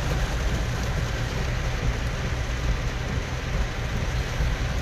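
Steady rumble and hiss of a vehicle driving slowly, heard from inside its cabin: engine and tyre noise with no distinct events.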